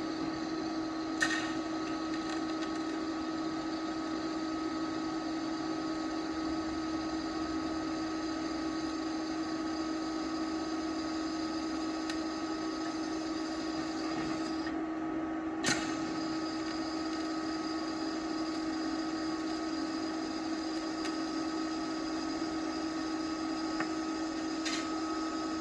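TIG welding arc from a YESWELDER TIG 205-DS inverter welder burning steadily on steel, a continuous hiss over a steady electrical hum. The arc is broken by sharp clicks three times, about a second in, around halfway and near the end, where the tungsten electrode is sticking to the work and getting contaminated.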